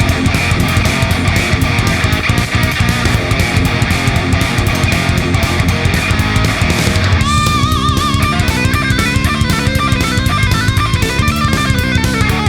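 Background rock music with distorted electric guitar and drums keeping a steady beat. About seven seconds in, the dense guitar sound gives way to a clearer line of separate melodic notes.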